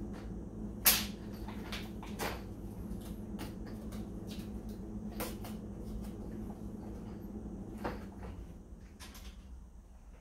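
A few sharp knocks and clatters of objects being handled, the loudest about a second in, over a steady low hum.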